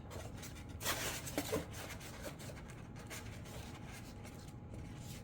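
Faint rubbing and scraping as a glued rear tail fin piece is pushed into its slot on an RC jet's body, with a short louder scrape about a second in.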